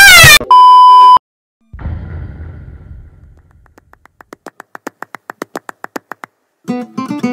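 Edited sound effects: a warbling electronic glide, then a steady high beep lasting under a second, a fading swell of noise, and a run of rapid even ticks, about seven a second. Strummed acoustic guitar music comes in near the end.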